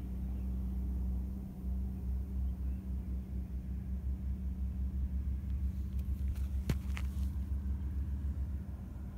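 A steady low rumble with a constant hum and a fast, even flutter, and a few sharp clicks about seven seconds in.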